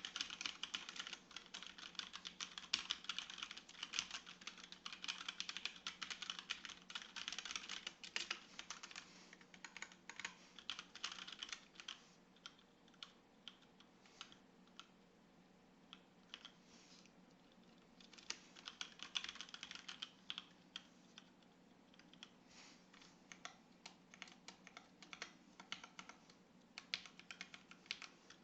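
HyperX Alloy Origins Core mechanical keyboard with HyperX Aqua tactile switches being typed on. There is fast, continuous typing for about the first twelve seconds, then slower, scattered keystrokes with another quick run a little past the middle, under a faint steady hum.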